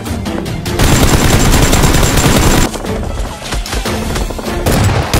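Rapid automatic gunfire sound effects: a dense run of shots lasting about two seconds, then scattered shots, over background music.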